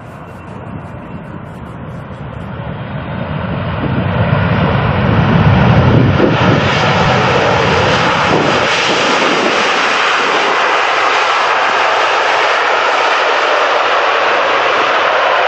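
Jet airliner landing and passing low overhead. Its engine noise grows louder over the first six seconds or so, with a deep rumble at the peak, then settles into a steady, loud rushing sound.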